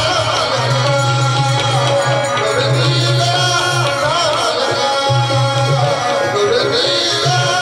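Live Marathi tamasha folk music: a sung melody over the beat of a barrel-shaped hand drum.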